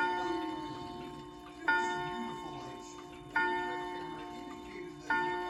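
Ridgeway triple-chime clock striking the hour: the same deep chime tone struck four times, evenly about every 1.7 seconds, each stroke ringing on and fading before the next.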